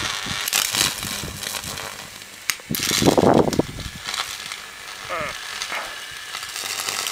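Crackling and sizzling of mains current arcing from a can of salt water into the earth floor, over a faint electrical hum. The arcing flares louder for about a second around three seconds in.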